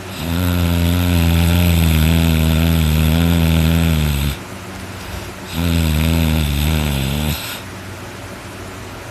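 A person snoring very loudly: two long snores with a low buzzing pitch, the first about four seconds long and the second about two, over a steady background hum.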